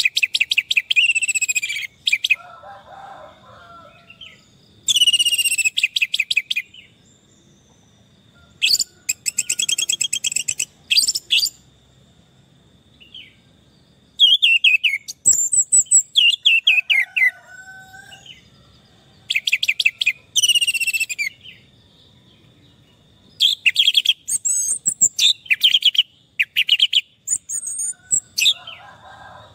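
Orange-headed thrush singing: a series of song bursts of rapid, varied high whistles and chatter, each a second or two long, separated by short pauses. A faint steady high-pitched tone runs underneath.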